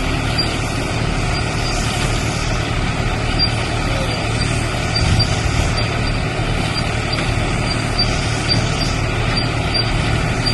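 Tractor-driven silage baler running steadily: a continuous engine drone with machine clatter, and a light, regular high ticking repeating about two or three times a second.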